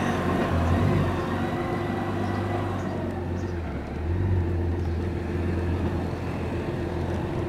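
BMW K1600 GT's inline six-cylinder engine running at low speed as the bike rolls over cobbles, a steady low hum that dips briefly about four seconds in and picks up again.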